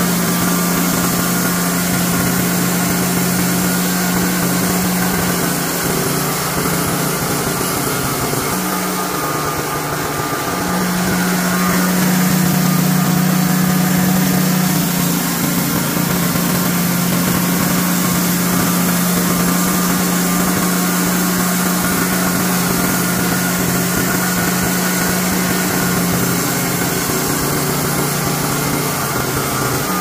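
Wood-Mizer LT40 portable band sawmill running, its Honda gasoline engine holding a steady pitch while the band blade saws through white cedar. The engine note rises slightly for a few seconds around the middle, then settles back.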